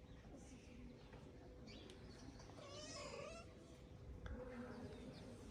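A cat meowing once, faintly, about halfway through: one drawn-out call that rises and then falls in pitch.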